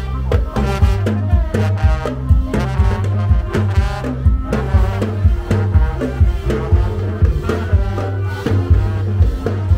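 A marching brass band plays an upbeat tune, with trombones and trumpet carrying the melody over a steady drum beat.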